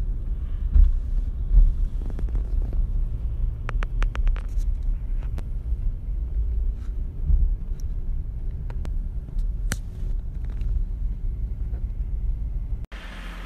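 Steady low road rumble inside a moving tour bus, with a few light clicks and rattles.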